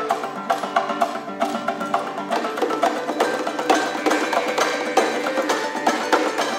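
Kazakh folk ensemble playing: plucked long-necked lutes and a zither over a steady knocking percussion beat.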